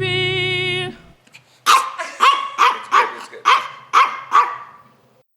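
A held sung note ends about a second in, then a dog barks seven times in quick succession, about two barks a second.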